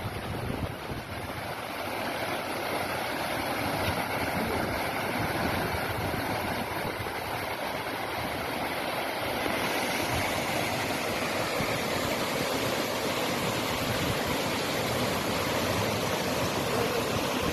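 Rain-swollen water pouring over a series of stepped concrete weirs, a steady rushing and splashing.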